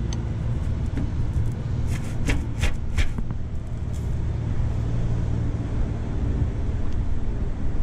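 A few short, sharp metallic clicks, from a bearing being handled and worked onto a steel blower shaft, about two to three seconds in, over a steady low hum.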